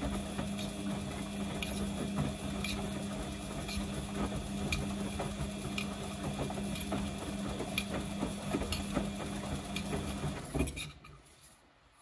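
Samsung front-loading washing machine tumbling wet laundry during its prewash: a steady motor hum with light ticks about once a second. The sound stops suddenly near the end as the drum comes to rest.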